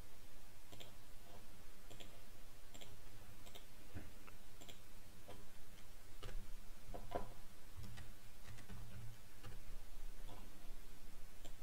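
Irregular, separate clicks of a computer keyboard and mouse as terminal commands are typed and menus are clicked.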